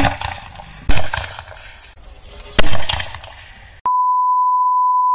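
Three loud bangs spread over about three seconds, each trailing off: small chilli firecrackers going off inside a homemade PVC-pipe animal-scaring cannon. About four seconds in, the sound switches to a steady, high-pitched test-tone beep.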